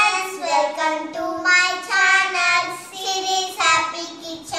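A young girl singing a melody in held notes that shift in pitch every half second or so.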